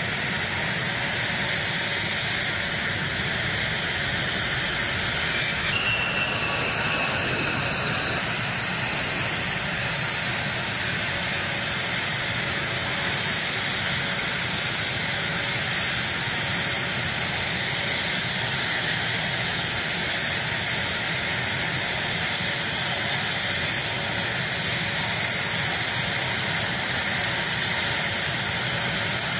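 An A-10 Thunderbolt II's twin turbofan engines in flight: a steady jet noise, with a brief falling whine about six seconds in.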